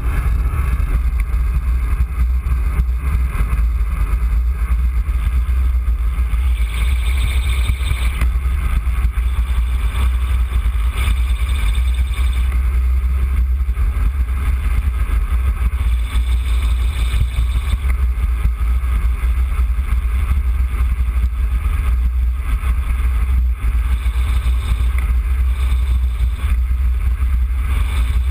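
Steady low rumble of wind buffeting the microphone during a fast bicycle descent, with the hiss of tyres on a wet road that swells now and then.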